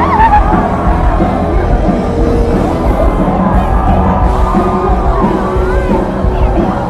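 Live rock band playing loudly, heard from the audience, with crowd voices mixed in.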